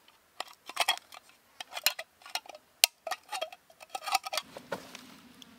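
Thin tin-can sheet metal being bent and pried to widen a cut slot to about 3–4 mm, giving a quick irregular run of sharp metallic clicks and scrapes that stops about four and a half seconds in.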